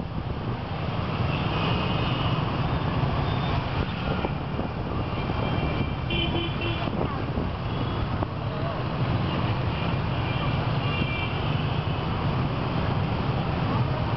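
Dense stream of small motorbikes and scooters passing close by, their engines making a steady, low drone of traffic. A few brief high tones sound over it now and then.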